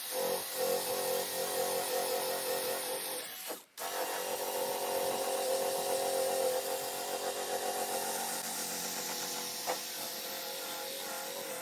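Electric drill spinning a polishing pad against a plastic headlight lens, its motor pitch wavering under load. It cuts out briefly a little over three and a half seconds in, then runs on.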